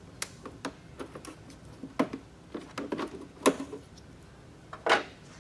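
Plastic push-in trim clips being pried out of the engine bay with a pry tool: a series of irregular clicks and snaps, the loudest about three and a half seconds in and another near five seconds.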